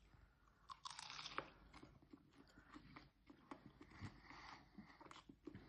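A person chewing and crunching fish and chips up close: a scatter of quiet, crisp crackles and bites.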